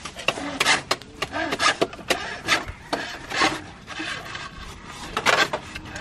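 Irregular rasping strokes of a hand tool working wood, about one or two a second, with a short lull partway through.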